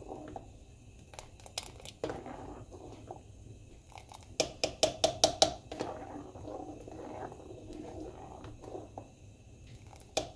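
A spoon stirring thick cornmeal porridge in a pan: a soft, wet scraping, with a quick run of about seven sharp clacks of the spoon against the pan about four and a half seconds in.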